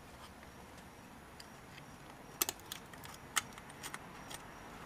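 A handful of light, sharp clicks and taps in the second half as gloved hands work at the pad hardware on a rear disc brake caliper bracket, applying grease.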